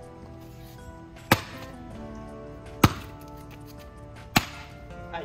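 Axe splitting firewood: three sharp chopping strikes into wood, about a second and a half apart, over background music.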